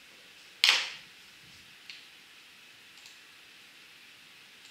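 Clicks at a laptop while pages are changed: one loud, sharp click with a short fading tail about half a second in, then a smaller click and a few faint ticks.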